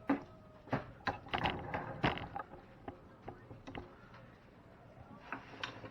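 Light clicks and knocks of kitchen utensils and dishes being handled on a countertop, a cluster in the first two seconds and a few more about five seconds in.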